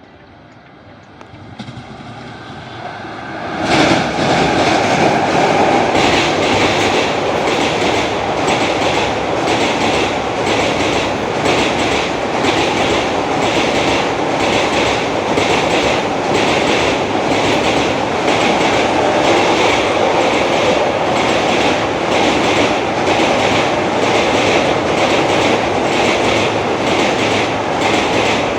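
Guwahati–SMVT Bengaluru Superfast Express passenger train passing close by at speed. It builds up quickly and turns loud about four seconds in. After that comes a steady rumble of the coaches with a regular clickety-clack of wheels over rail joints.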